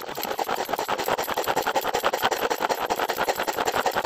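Pull-cord manual food chopper worked by hand, its blades spinning inside the plastic bowl as the cord is pulled again and again, chopping masala ingredients. It makes a continuous rapid ticking whirr.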